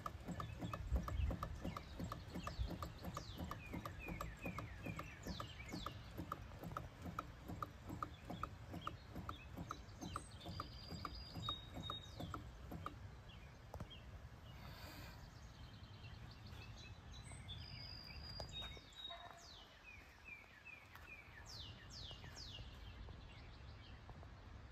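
Small 1920s Kyko hot air (Stirling) engine running, its linkage clicking in a quick steady rhythm of about three or four clicks a second over a low thrum, the clicking fading out around the middle. Birds chirp and whistle throughout.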